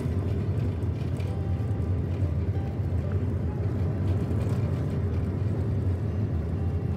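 Cabin noise of a van driving along a road: a steady, loud low rumble of engine and tyres, with music playing faintly underneath.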